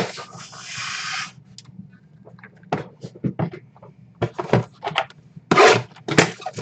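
Trading card boxes and packs being handled and opened: a noisy stretch of wrapper tearing and crinkling at the start, then scattered clicks and knocks of cardboard and packs, with a louder burst of crinkling near the end.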